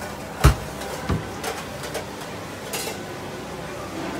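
Kitchen utensils and containers clattering at a crepe stall: one sharp knock about half a second in, a second knock about a second in, then lighter clicks over steady background noise.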